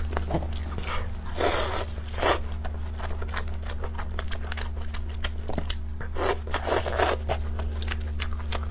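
Close-miked eating sounds: chewing and crunching with many small wet mouth clicks and a few louder crunches, over a steady low hum.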